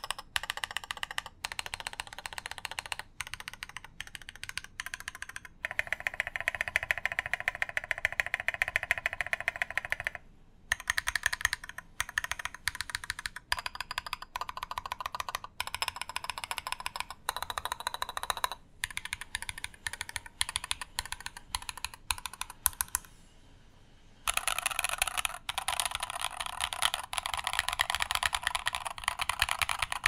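Fast typing on a custom mechanical keyboard with lubed tactile switches: quick runs of crisp keystrokes broken by short pauses, with the longest pause, about a second and a half, a little past twenty seconds in.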